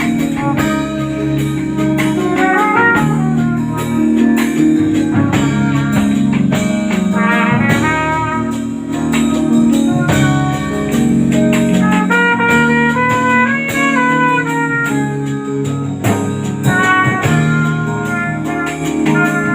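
Instrumental break of a band: a lead melody line running up and down over bass, chords and a steady drum beat.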